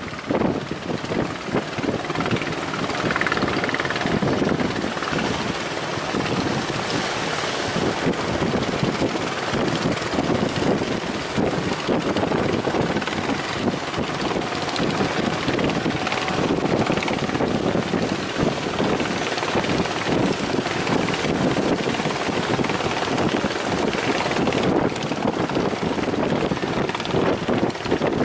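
Strong wind buffeting the microphone, a loud, gusty rumble and rush with no let-up.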